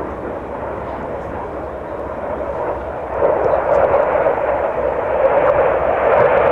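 Jet noise from a Blackburn Buccaneer's twin engines as it flies past in a tight banking turn. It is steady at first and grows clearly louder about three seconds in.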